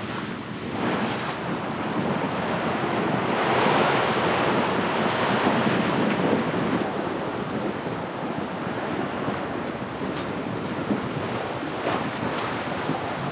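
Strong, gusty wind buffeting the microphone over the rush of choppy waves and spray breaking along the hull of a sailboat driving hard under sail. The noise swells for a few seconds about three seconds in.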